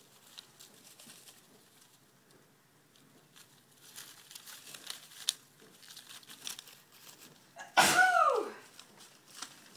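Shredded newspaper bedding rustling and crinkling in scattered bursts as pet mice scurry and jump through it. About eight seconds in, a loud short sound cuts in whose pitch falls steeply.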